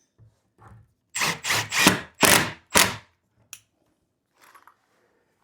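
Drill working into melamine particle board in about five short, loud bursts, followed by a faint click and light scuffing. This is typical of driving confirmat screws down tight to secure a cabinet side.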